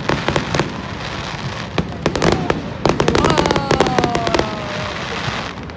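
Fireworks display: clusters of rapid crackling pops from bursting shells, with a whistle falling slowly in pitch near the middle.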